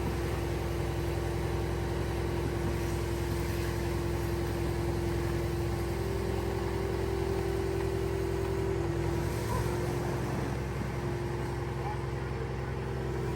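Long-reach excavator's engine running steadily with a constant hum, its pitch shifting slightly about nine and a half seconds in as the machine starts working.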